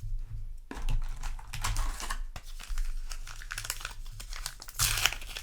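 Rustling and crinkling of a booster pack's wrapper and trading cards being handled, an irregular run of crackles and clicks that starts about a second in, over a low steady hum.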